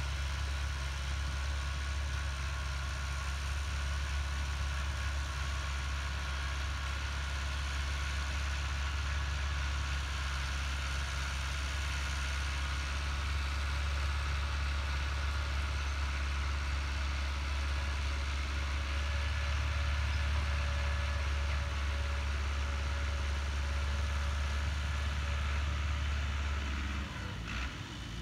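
Diesel tractor engine running steadily as it pulls a seed planter across the field. Near the end the engine sound drops and a few clicks come in.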